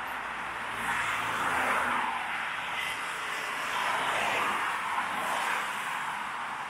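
Road traffic: a steady rush of tyre and engine noise that swells twice as vehicles pass close by, about a second in and again around four seconds.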